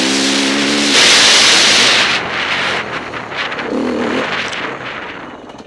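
Enduro motorcycle engine running on a helmet-camera track. The steady engine note gives way about a second in to a loud rush of noise lasting about a second. The sound then dies down steadily as the bike slows to a stop.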